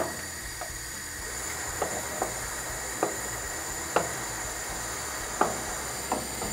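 Wooden spoon stirring margarine into boiling sugar water in an enamel pot, knocking against the pot's side at irregular intervals about once a second, over a steady hiss.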